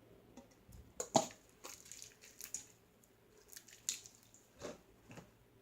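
Peel-off face mask slime being squeezed and worked by hand, giving irregular wet, sticky clicks and pops, the loudest about a second in.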